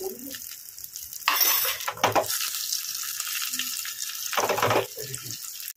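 Tempering spices sizzling in hot coconut oil in a small pan: mustard seeds, urad dal, curry leaves, dried red chillies and fenugreek. A steady frying hiss swells louder twice, about a second in and again near the end.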